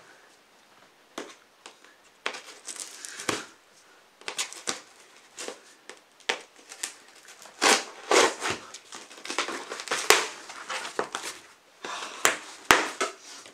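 Packing tape being cut and pulled off the top of a cardboard box, with the cardboard crinkling and scraping under the hands. Irregular sharp crackles and rasps, sparse at first and coming thicker and louder in the second half.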